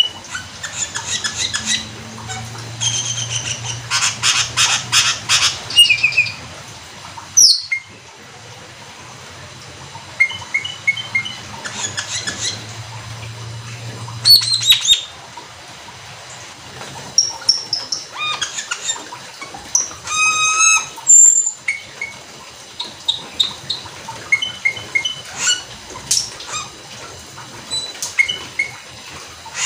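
Asian glossy starling (cucak keling) singing in full song: bursts of sharp, high chirps and whistles, with fast runs of repeated notes, quick whistle glides and a short trill, broken by brief pauses.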